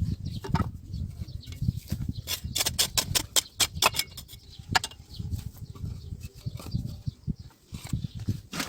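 Stones and bricks clicking and knocking against each other as they are handled and set in place around a fire pit, with a cluster of quick knocks a couple of seconds in, over a low rumble.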